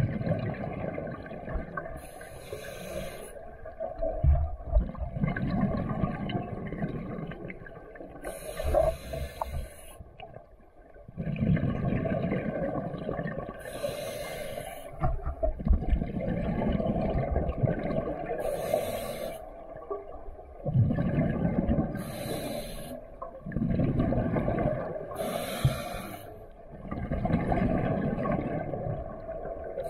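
A scuba diver breathing through a regulator underwater, about six breaths. Each has a short sharp hiss as air is drawn through the regulator and a longer low rumble of exhaled bubbles.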